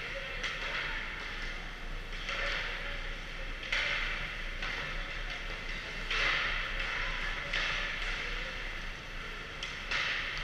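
Hockey skate blades carving and scraping on ice in repeated hissing swishes, each starting suddenly, with a few sharp clacks of sticks or pucks near the end, over a steady low hum.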